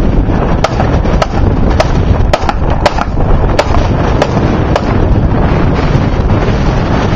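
Gunshots in an irregular string, about nine sharp reports roughly every half second to second over the first five seconds, heard through heavy wind buffeting on the microphone.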